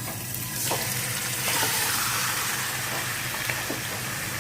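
Marinated chicken frying in hot sunflower oil: a steady sizzle, with a few clicks as pieces land in the pot.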